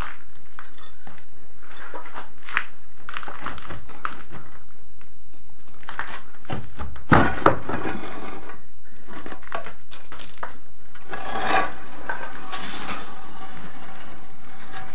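Broken slabs of sand-cement floor screed being lifted and shifted by hand, clattering and scraping against each other. Two sharp knocks come about halfway through, and a longer gritty scrape follows near the end.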